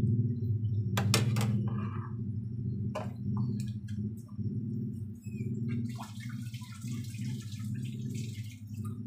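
Condensed milk being mixed into melted butter in a cooking pan: a few sharp clinks of a utensil, then a soft hiss late on, over a steady low hum.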